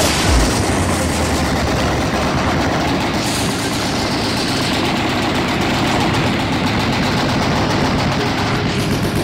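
Many machine guns firing together in one unbroken, rapid rattle of overlapping shots.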